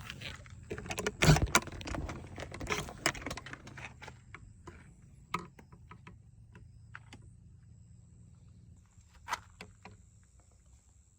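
A quick run of clattering clicks and knocks from small hard objects being handled, loudest about a second in, then a couple of single knocks with a faint low hum behind.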